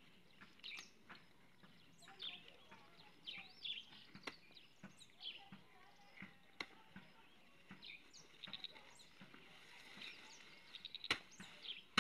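Birds chirping all through, faint, with a few sharp snaps and clicks of green maize stalks and leaves being cut and handled, several in quick succession near the end.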